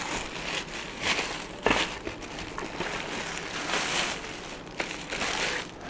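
Thin plastic packaging bag crinkling and rustling as it is pulled off a food processor part, in uneven surges with a sharp crackle about a second and a half in.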